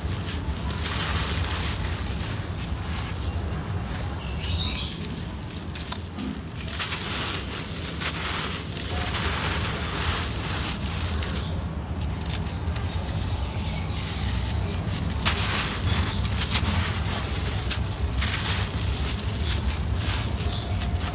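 Dry, gritty sand blocks crumbling as rubber-gloved hands crush them, with loose grit pouring and rustling, crackling with small ticks. There is one sharp click about six seconds in.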